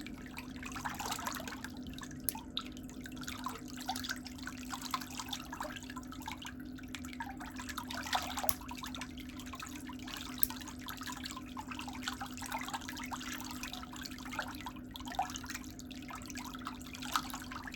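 Water sloshing and dripping in a pedicure foot bath, with small irregular splashes over a steady low hum.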